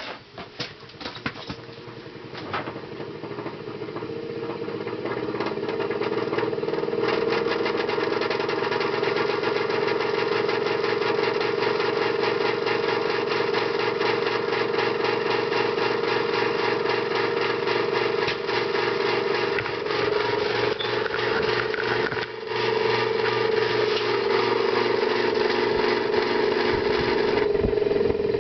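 1978 Emerson friction-drive ceiling fan motor coming up to speed over the first several seconds, then running steadily with a hum and a rhythmic clunk once every revolution. The clunk comes from a worn motor shaft or bearing.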